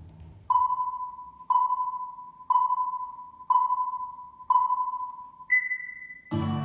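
Countdown beeps from an electronic timer: five short beeps at one pitch, one each second, each fading away, then a single higher, longer beep as the go signal. Plucked acoustic guitar music starts right after it, near the end.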